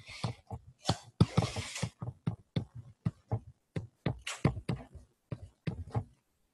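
A stylus writing on a tablet: quick irregular taps and short scratches as each character is drawn, several a second, with a couple of longer scratching strokes; the writing stops near the end.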